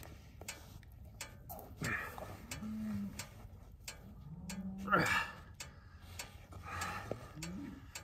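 Angus cow in labor moaning low several times, one longer call rising near the middle, as her calf is pulled out by hand.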